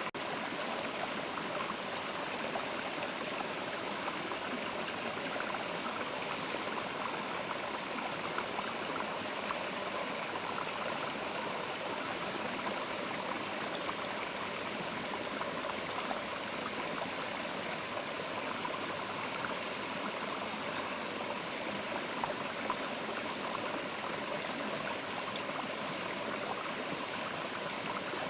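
Mountain river rushing steadily over stones, an even, unbroken flow of water.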